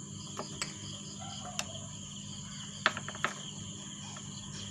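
Steady high-pitched chirring of crickets with a low hum beneath, and a handful of light clicks, most around three seconds in, from a spoon against a bowl as flour is measured out for batter.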